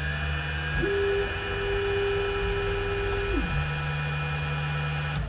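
Tenlog TL-D3 Pro 3D printer's stepper motors humming as the bed and print head travel to the next bed-levelling point: a steady low tone that steps up in pitch about a second in, holds, then drops back down about two and a half seconds later as the move slows. The sound stops abruptly at the end.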